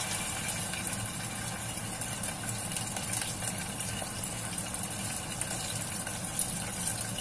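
Chicken pieces sizzling steadily as they deep-fry in hot oil in a saucepan, with a dense crackle.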